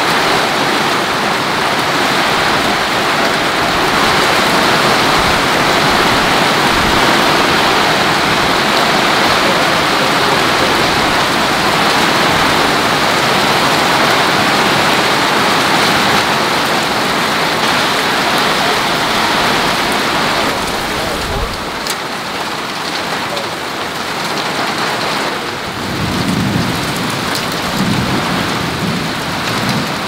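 Heavy rain pouring down in a severe storm, a dense, steady hiss of rain on roofs and foliage that eases slightly about two-thirds of the way through.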